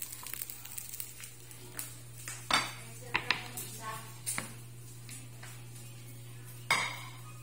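Kitchen clatter: a few sharp knocks and clinks of utensils and cookware, the loudest about two and a half seconds in and again near the end, over a steady low hum.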